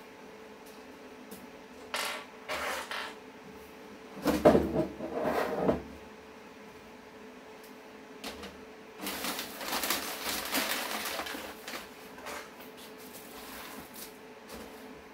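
Rustling and crinkling of packing paper and plastic wrap as a computer case is unpacked and handled, in irregular bursts. The loudest handling is about four seconds in, with a longer stretch of rustling from about nine to twelve seconds.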